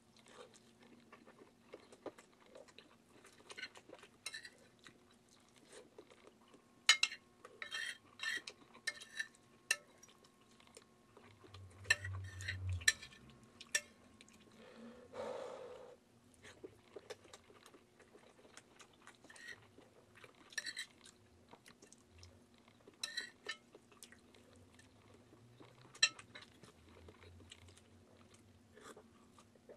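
Metal spoon clinking and scraping against a plate of scrambled eggs in short, irregular ticks, with quiet chewing in between.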